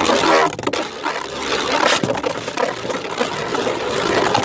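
Two 3D-printed Beyblades spinning and clashing in a stadium, a dense grinding scrape with many sharp clicks as they hit.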